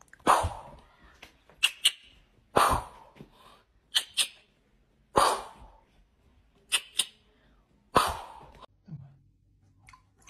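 Fingers snapping in quick pairs, three times, alternating with four heavier thumps that trail off briefly: a kitten hopping on a bedspread in answer to the snaps.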